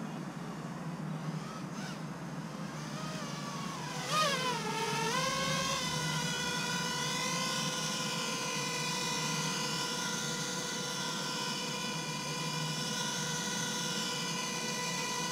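Self-built FPV racing quadcopter's brushless motors: their whine swings down and up in pitch as it comes down, with a short bump about four seconds in, then settles into a steady whine with many overtones as the motors keep spinning at idle on the ground, still armed.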